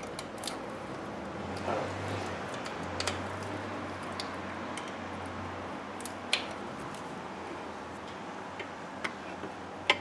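Scattered light metallic clicks at irregular intervals, from a wrench working the bolt off an electrical lead on the starter, over a steady low hum.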